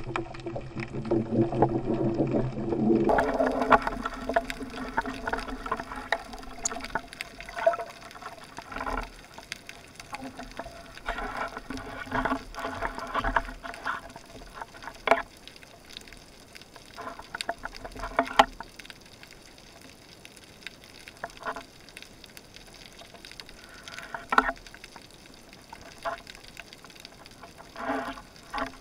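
Underwater sound picked up by a dive camera: irregular clicks, knocks and scrapes as a speargun and a speared mullet are handled, over a faint watery hiss. For about the first three seconds a denser, steadier underwater noise runs before it changes abruptly.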